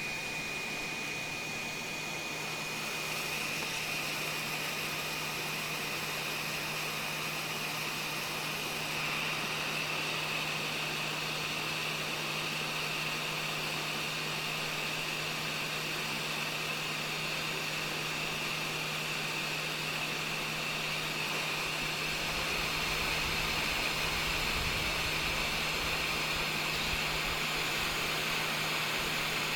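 Steady whooshing noise with a constant low hum, like a small fan or motor running, growing slightly louder about nine seconds in.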